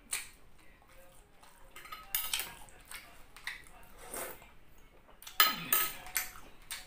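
Metal spoon clinking and scraping against a glass baking dish of soup, a handful of separate clinks with the loudest cluster a little past halfway, along with a sip of soup taken from the spoon about four seconds in.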